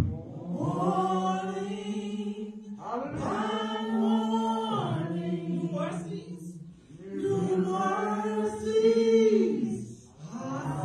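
A woman singing unaccompanied into a handheld microphone, in three long held phrases with short breaths between them.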